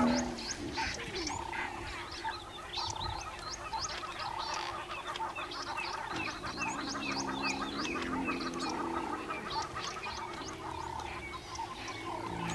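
Chorus of wild birds calling: many rapid, high chirps that sweep downward, over a steady run of short lower notes about once a second. A soft, low call rises underneath about halfway through.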